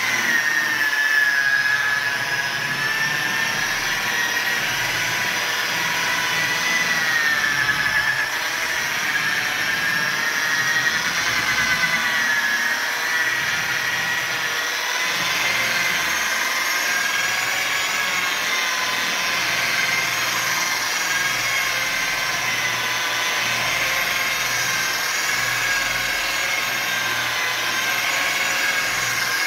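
Electric rotary polisher running steadily, its buffing pad working compound into a van's painted clear coat; the motor whine wavers slightly in pitch as the pad is pressed and moved over the panel.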